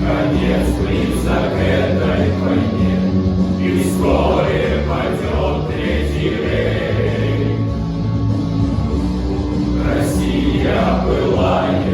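Male choir singing with music, holding long sustained notes.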